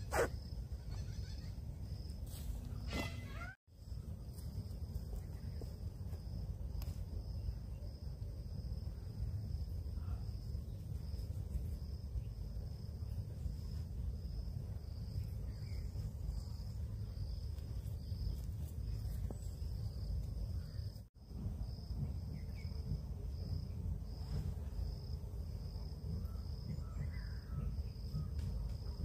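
Woodland ambience: an insect calling in a steady, even pulse high up, with a few faint bird chirps, over a low wind rumble on the microphone.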